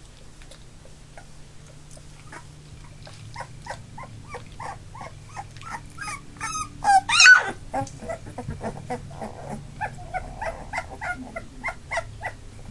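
Labrador puppies just under three weeks old whimpering and squeaking, a string of short high cries about two or three a second, with one much louder yelp near the middle.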